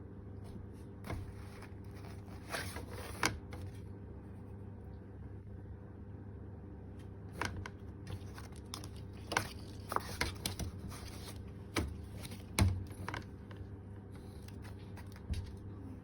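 Irregular light taps, clicks and rustles of a cat batting and playing with a small object, the sharpest knock about three quarters of the way in, over a steady low hum.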